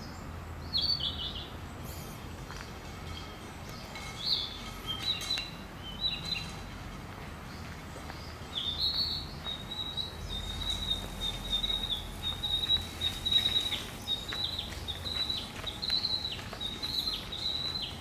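Songbird singing: a few short, high, falling phrases, then from about halfway a long unbroken run of high notes with quick downward flicks.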